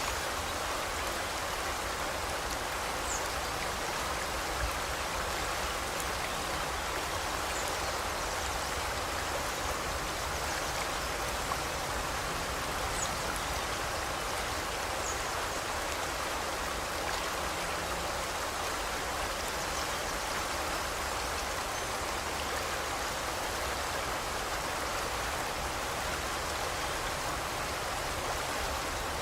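River water flowing and rushing steadily over stones, with a few faint, brief, high bird chirps scattered through it.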